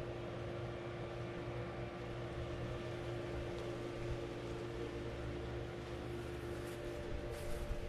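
Steady machine hum with a few constant tones, like a motor running, and a few faint clicks and rustles near the end.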